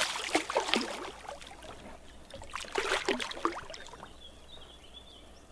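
Hooked wels catfish thrashing at the water's surface beside the boat during the fight, splashing in two bouts, the second about two and a half seconds in. A faint high wavering whistle comes near the end.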